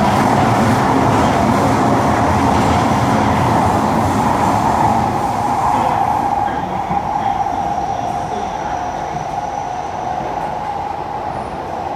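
Running noise of a Kawasaki–CSR Sifang C151B metro train heard inside the car in a tunnel: a steady rush of wheels on rail with a strong mid-pitched hum. It gets quieter from about halfway through.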